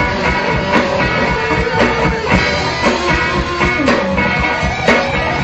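A live rock band playing, with guitar over a drum kit that keeps a steady beat.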